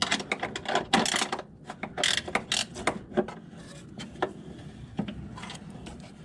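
Ratcheting combination wrench clicking as it tightens a bolt on the car's underbody, in quick runs of clicks that thin out in the second half.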